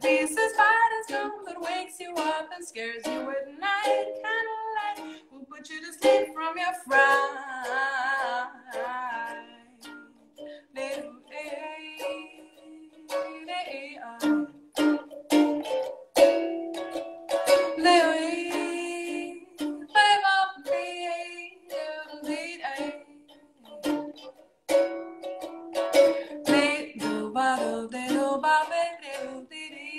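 A woman singing a song while strumming a ukulele.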